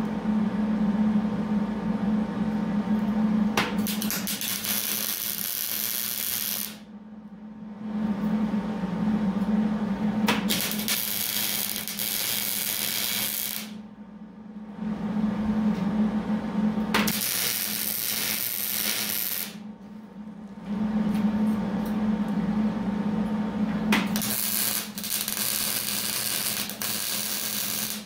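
Wire-feed (MIG) welder arc crackling and sizzling as steel rail pieces of a track switch are welded: four welds of about three seconds each with short pauses between them, over a low hum.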